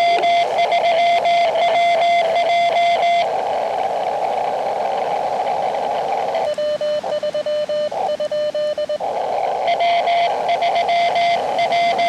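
Morse code from an Elecraft KX2 transceiver's audio: a steady tone keyed on and off in quick dots and dashes over receiver hiss. About six seconds in, the hiss drops out and a lower-pitched tone is keyed for a couple of seconds. Near the end the higher-pitched code returns over the hiss.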